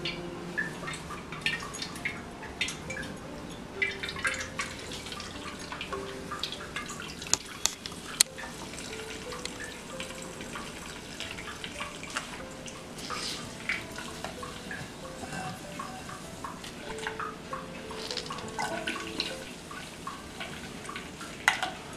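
Coconut milk trickling and dripping through a cloth and a stainless steel mesh strainer into a bowl as the ground coconut is squeezed and poured, with scattered small clicks of hands and metal.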